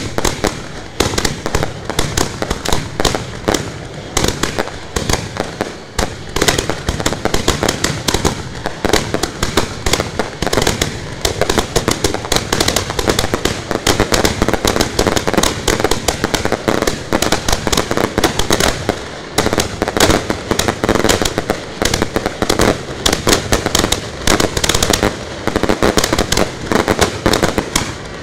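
Ground-level fireworks firing at close range: a loud, dense, unbroken barrage of sharp pops and bangs, many a second, as the pieces throw up showers of sparks.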